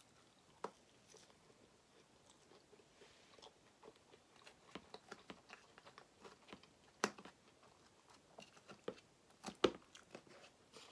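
Close-up chewing of a mouthful of cheese-covered French fries, with soft wet mouth sounds. A few sharper clicks, the loudest about seven and ten seconds in, as a metal fork meets the metal sheet pan.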